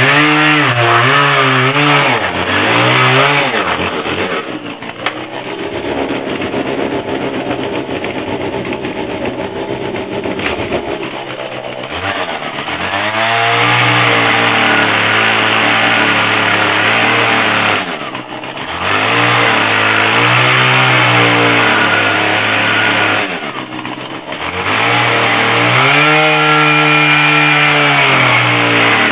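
Husqvarna 240 two-stroke chainsaw fitted with a 12-inch carving bar, revving up and down as it carves wood, the engine note falling back toward idle between cuts about four times.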